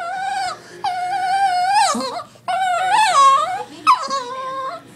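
Dog whining in long, high-pitched calls, about four of them, each lasting around a second, while it plays at grabbing a sock.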